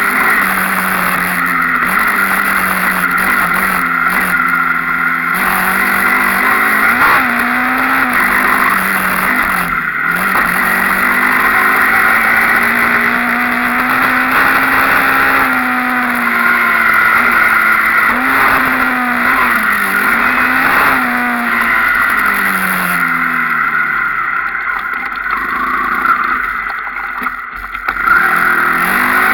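Enduro motorcycle engine revving up and down as it is ridden, its pitch rising and falling with the throttle. It eases off and goes quieter a few seconds before the end, then picks up again.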